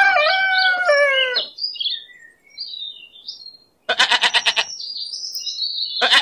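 Sheep bleating with birds chirping between the calls: a long bleat falling in pitch at the start, then quavering bleats about four seconds in and again near the end.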